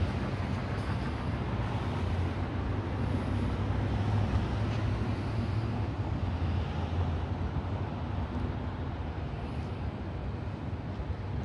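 Steady low rumble of outdoor background noise, even throughout and strongest in the low end.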